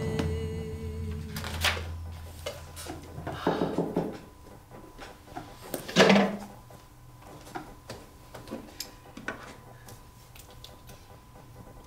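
Scattered light knocks and handling noises of someone moving at a desk and chair, with one louder knock about six seconds in. A steady low tone dies away in the first second or so.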